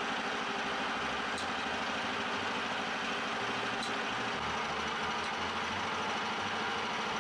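Small petrol engine of a homemade garden tractor running steadily at idle, with a few faint light ticks every second or two.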